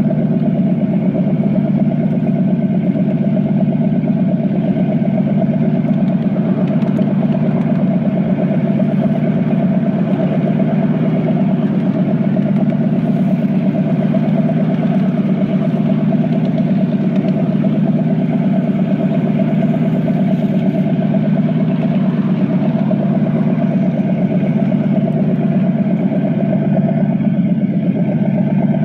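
Miniature-railway locomotive built as a model Class 37, running along the track with a steady mechanical drone that holds one pitch throughout.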